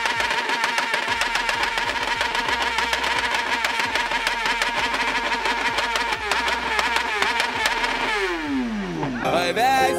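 BMW S 1000 RR superbike's inline-four engine held against its rev limiter, the ignition cutting rapidly and steadily so the note stutters at one high pitch. About eight seconds in the throttle is released and the revs fall away quickly; music comes in near the end.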